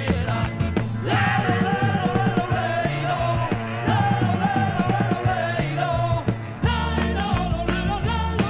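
Spanish pop-rock record playing: singing over a bass line and drums, with a wavering lead line coming in about a second in.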